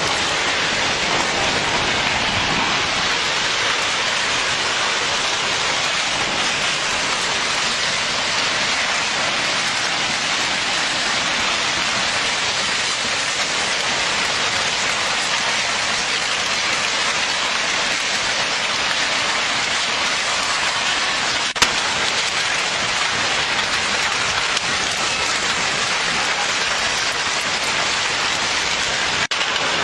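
Steady rushing noise of water, even and unbroken, with one sharp click about three-quarters of the way through.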